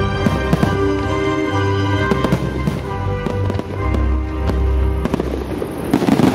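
Fireworks launching and bursting as sharp cracks and pops over music with steady held tones. About six seconds in, a louder rush of crackling bursts.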